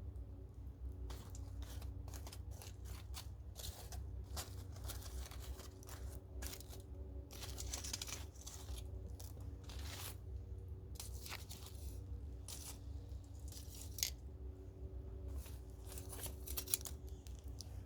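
Wood campfire burning, crackling irregularly over a low steady rumble, with two sharper pops in the second half.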